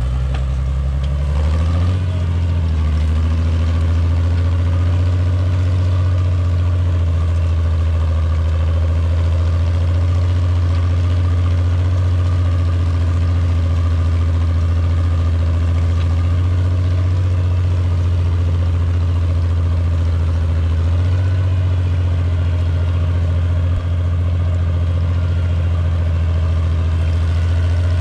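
1962 Farmall 560 tractor engine running steadily under load while pulling a mouldboard plow through stubble, its note rising slightly about two seconds in.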